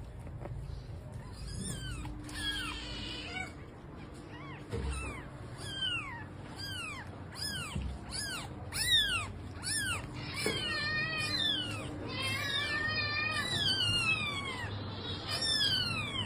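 Cat mewing over and over in short, high calls that fall in pitch, coming faster, with several calls overlapping from about ten seconds in.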